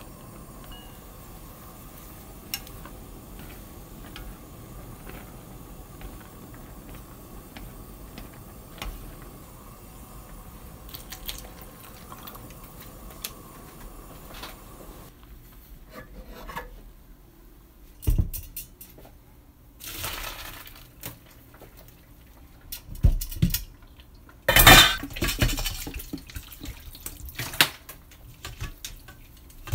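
Pot of noodles boiling, with light clicks of chopsticks stirring against the stainless steel pot. About halfway through this gives way to a steel sink: several metal knocks of a colander and bowl, and a few loud spells of water pouring and splashing as the noodles are drained and rinsed.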